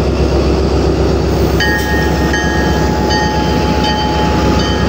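Pakistan Railways ZCU-30 diesel-electric locomotive running slowly past at close range, its engine a steady low rumble. About a second and a half in, the locomotive's bell starts ringing, a ding repeated about every 0.7 s, over a steady high tone.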